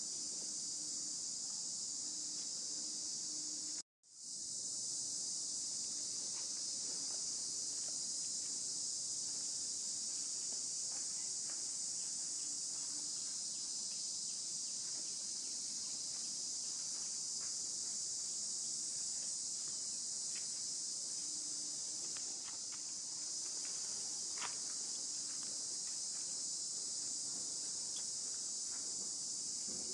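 Steady high-pitched chorus of insects, unbroken except for a momentary cut-out about four seconds in.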